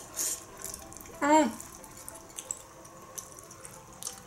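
A person slurping Korean spicy instant noodles from chopsticks, with a short hissy slurp at the start, then chewing with small wet mouth clicks. About a second in comes one brief voiced sound from the eater, its pitch bending up and back down.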